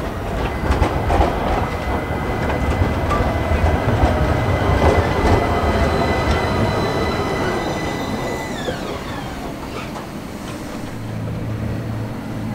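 Articulated low-floor electric tram passing close by on street track: wheels rumbling and clicking over the rails, loudest as it goes past. A steady high whine slides down in pitch as it moves away.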